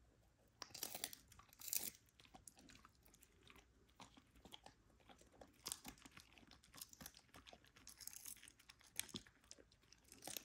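A husky chewing a cod skin treat: an irregular string of crunches and bites, the loudest two about a second and two seconds in.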